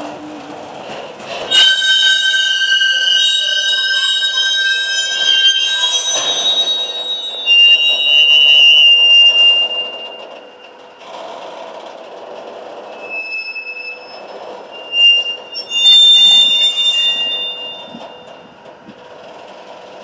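Rail retarder clamping the wheels of rolling freight wagons: a loud, shrill squeal of several high tones at once. It starts about a second and a half in and lasts about eight seconds, and a second, shorter squeal comes about fifteen seconds in.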